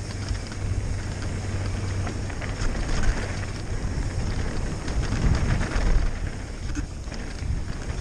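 Mountain bike descending a dirt singletrack at speed: tyres rolling and crunching over dirt and gravel with constant small rattles and clicks from the bike over bumps, under a heavy rumble of wind on the microphone.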